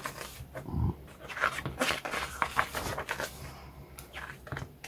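Glossy pages of a book being handled and turned: soft paper rustles and slides, with a short low sound about a second in.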